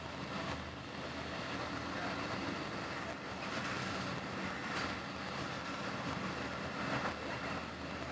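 Passenger train running at speed, heard from inside the carriage: a steady low rumble with a few brief louder swishes.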